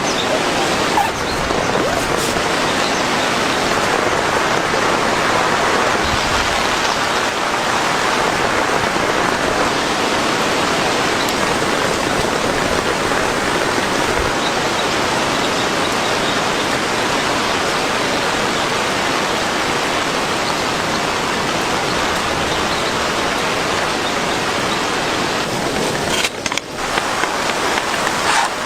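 Heavy rain pouring steadily, a dense even hiss that drops briefly near the end.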